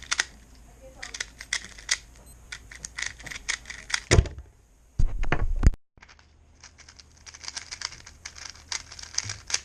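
Plastic Rubik's-type speed cube being turned quickly by hand: dense, irregular clicking of its layers snapping into place. A low thump about four seconds in and a louder knock a second later break it up, and the clicking resumes after a brief dropout.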